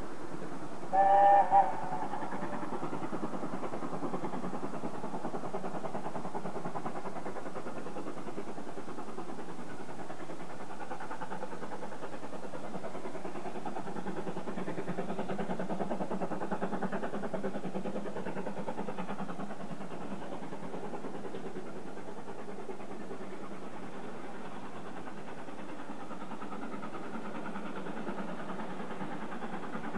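BR Standard Class 7 'Britannia' Pacific steam locomotive working hard up a 1 in 100 gradient as it approaches, its rapid, even exhaust beat ('bark') building slightly midway. About a second in, a short two-part pitched hoot stands out above it.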